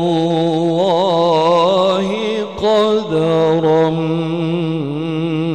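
A male qari reciting the Quran in the melodic murattal/tilawah style into a microphone. He draws out long, ornamented held notes with a wavering vibrato, with a brief break for breath about halfway through.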